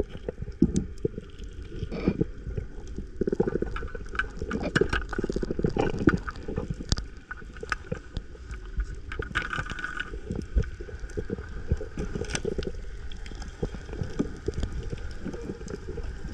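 Underwater sound picked up by a diver's camera: muffled rushing and gurgling of water, with many scattered clicks and knocks.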